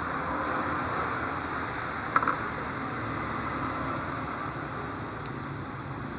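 A steady background hiss, with a few small metallic clicks about two seconds in and a single sharp tick a little after five seconds, as a sewing machine's steel rotary hook assembly is handled and turned over.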